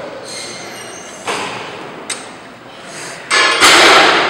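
Cable machine in use during a one-arm set, its weight stack knocking a couple of times, then a loud rush of noise lasting about a second near the end.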